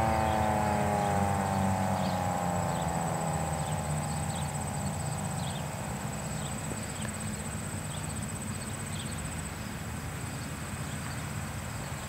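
Federal Signal 2001-SRN rotating outdoor warning siren winding down at the end of its test alert cycle, its tone falling in pitch and fading away over the first few seconds. A steady high-pitched insect trill and a low rumble carry on after it.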